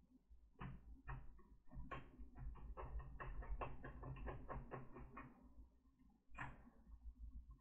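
Plastic clicks and taps from a laptop case being worked apart by hand. A few single clicks come first, then a quick run of about four a second for some three seconds, then one last louder click near the end.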